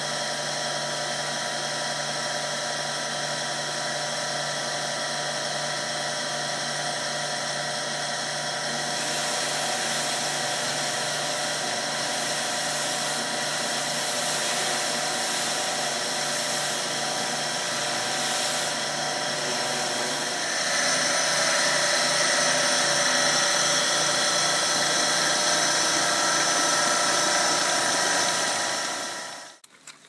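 Motor of a stainless-steel basket wine press running with a steady whine while it presses grapes. It grows louder about 21 seconds in and fades out near the end.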